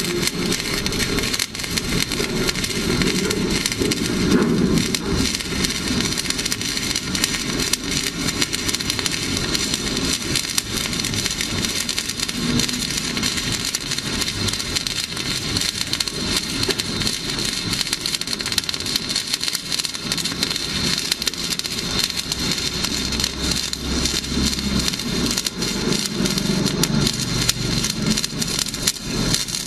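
MIG welding arc crackling and sizzling continuously while a vertical-down (descending) weld bead is run.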